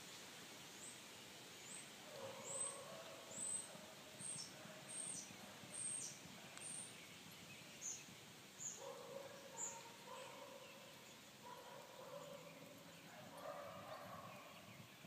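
A songbird calling a series of short, high chirps that slide downward, about a dozen over the first ten seconds, with fainter lower tones coming and going behind them.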